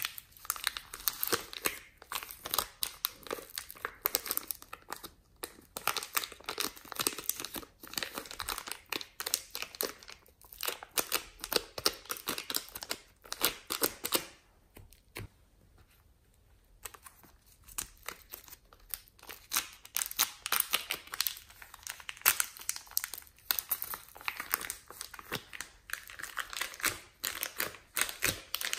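Thin plastic bags crinkling and crackling in the hands as soft modelling clay is squeezed out of them, a dense run of quick crackles that drops to a quieter stretch about halfway through.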